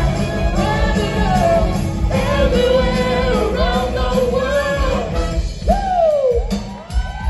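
Live soul band playing with a horn section, drums and singing, with a long falling glide in the melody about six seconds in.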